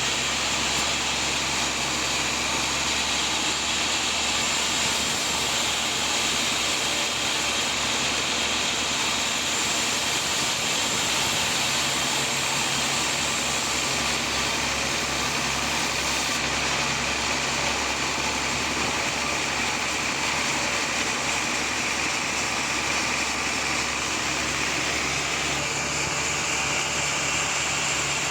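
Sawmill machinery running steadily while sawing a teak log: a continuous loud mechanical noise with a strong hiss, no breaks or impacts.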